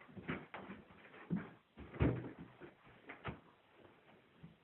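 Irregular thuds and knocks of footsteps and a door, the loudest about two seconds in, thinning out near the end.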